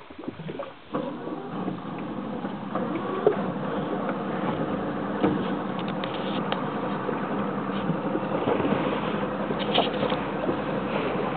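Outboard motor of a Zodiac inflatable boat running steadily, coming up in level about a second in and holding an even drone.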